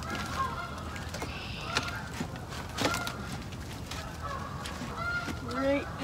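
Birds calling outdoors, the two strongest calls coming near the end, over scattered knocks of wood as a branch is worked into the shelter's pole frame.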